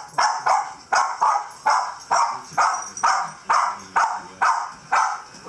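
West Highland white terrier barking in a fast, even string, about two to three sharp barks a second.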